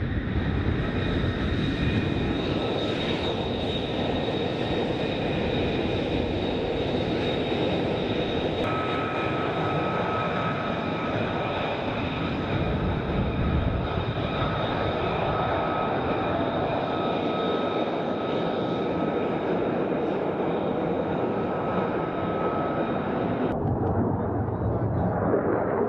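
F-35 fighter jet's turbofan engine running, a steady high whine over a broad rush. Near the end the whine drops away, leaving a lower rush.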